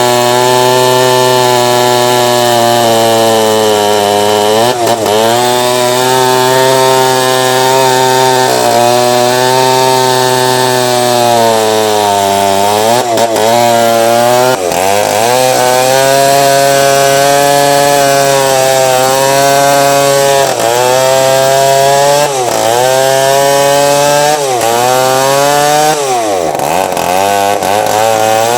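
Two-stroke chainsaw running at full throttle while cutting through a teak log. Its pitch dips briefly and recovers about eight times as the chain bogs down under load in the wood.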